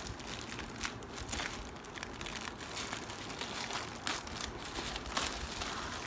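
Black plastic courier bag crinkling and rustling as it is handled and pulled open by hand, in an irregular run of crackles.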